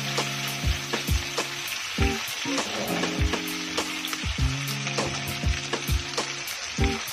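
Beef strips and garlic sizzling steadily in a frying pan while a wooden spatula stirs them.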